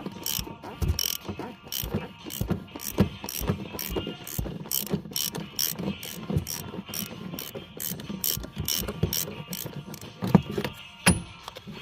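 Ratchet wrench clicking in an even rhythm, about three clicks a second, with a couple of louder metallic knocks near the end.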